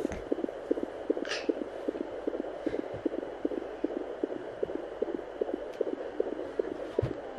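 Fetal heartbeat at 17 weeks of pregnancy picked up by a home fetal Doppler and heard through its speaker: fast, even beats that sound like a galloping horse, over the Doppler's steady hiss.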